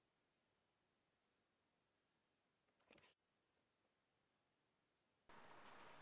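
Faint, high-pitched insect chirring, steady with slow swells in loudness, typical of crickets at dusk. A brief click breaks it about halfway, and it cuts off shortly before the end.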